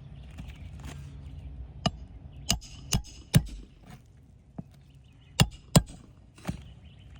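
Hammer blows driving roofing nails through an asphalt shingle: about eight sharp strikes in short uneven runs, the loudest about three and a half and six seconds in.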